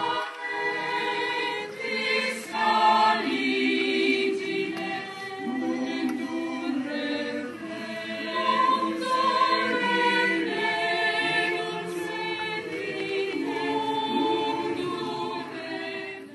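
Mixed choir of men's and women's voices singing slow, held chords.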